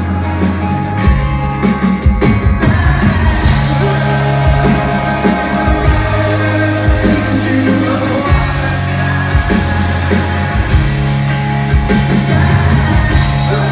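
Live rock band playing, heard from the audience: drums, bass and electric guitars over a strummed acoustic guitar, with a singer's voice.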